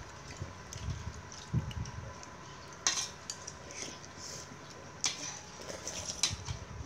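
Metal spoon and ceramic bowl clinking as gruel is eaten: scattered sharp clinks and a few soft knocks, the two loudest about three and five seconds in.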